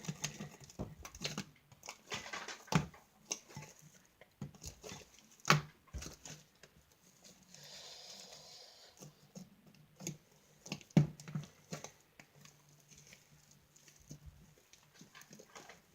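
Homemade borax-activated slime being squeezed and stretched by hand: irregular sticky clicks and squelches, a few of them louder.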